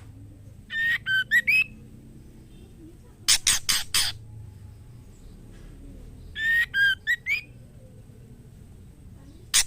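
Female white-rumped shama calling: a short phrase of two or three gliding whistled notes, then about two seconds later a burst of four loud, harsh notes. The pattern comes twice. It is the call of a female in breeding condition calling for a male.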